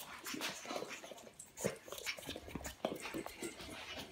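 Pug puppy playing with and mouthing a large plush panda toy: a string of short, irregular dog sounds and scuffles.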